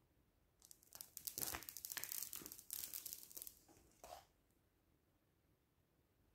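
Clear plastic protective sheet on a tabletop crinkling and rustling as a hand lifts and handles it, for about three and a half seconds starting under a second in.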